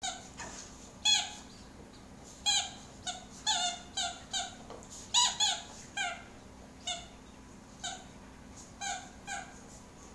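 A Dalmatian chewing a squeaky dog toy: a string of short, high squeaks at uneven intervals, each dropping slightly in pitch.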